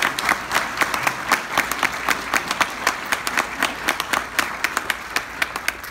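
Audience applauding, a crowd clapping steadily with one nearby pair of hands clapping sharply and distinctly, several claps a second.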